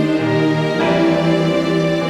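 Background music of sustained chords, moving to a new chord a little under a second in.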